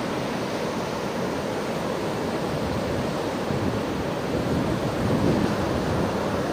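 Ocean surf washing on a broad, flat beach, a steady rush mixed with wind on the microphone, swelling a little about five seconds in.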